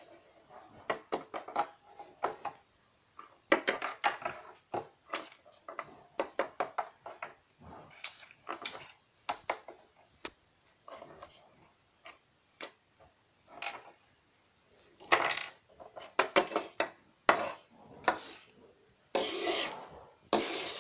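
Small plastic toy figures and props being picked up, tapped and slid across a desk: an irregular string of light clicks, knocks and rubbing.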